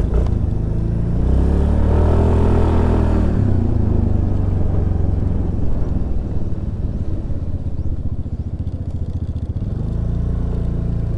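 Suzuki Burgman Street 125 scooter's single-cylinder engine running under way, its note rising over the first couple of seconds and then dropping back about three and a half seconds in, followed by a steady run with road and wind noise.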